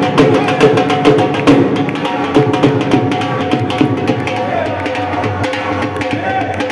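Devotional kirtan music: a hand drum beating a quick rhythm over steady held tones, with a crowd clapping along. The drum strokes are strongest in the first couple of seconds.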